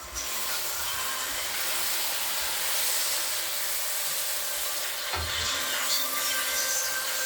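Food sizzling in a frying pan: a steady hiss, with a soft bump about five seconds in.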